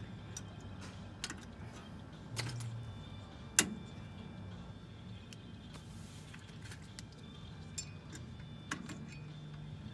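Scattered light metallic clicks and clinks of hand tools and drum brake hardware being worked, as the shoe adjuster is turned back on a 2008 Chevrolet Silverado's rear drum brake. The sharpest click comes about three and a half seconds in.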